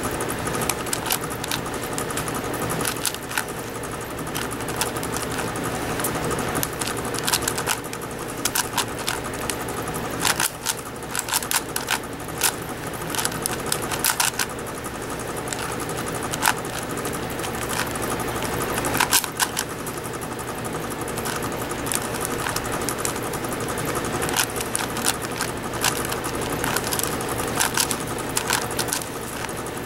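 Plastic 5x5 speed cube clicking and clattering as its layers are turned in quick, irregular bursts during a speedsolve, over a steady low hum.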